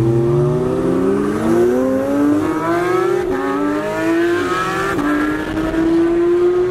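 A sports car's engine accelerating hard through the gears, loud, its pitch climbing and dropping back at each upshift several times.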